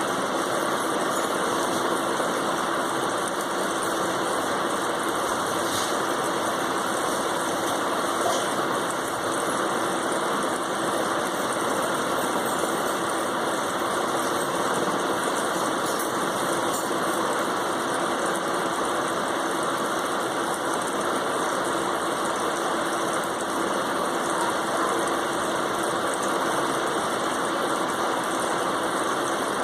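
Steady, unchanging mechanical hum and whoosh, like a motor running, with no change in level.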